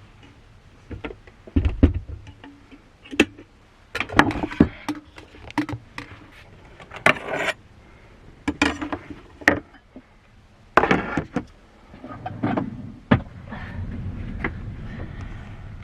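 Irregular knocks, clicks and scuffs of objects being handled close by. A low steady rumble sets in near the end.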